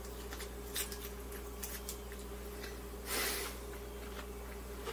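Someone chewing a mouthful of a vegetable wrap, with a few faint crunches and mouth clicks, over a steady low hum. A little over three seconds in comes a brief soft swish as the wrap is lowered to the plate.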